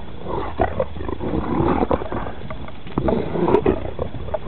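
Giant Schnauzer growling in rough, uneven spurts while it leaps and twists about in the snow in play.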